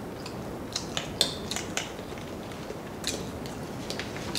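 Thin plastic water bottle crackling and clicking in the hand as it is drunk from and handled: a scattered string of sharp crinkles, loudest just over a second in.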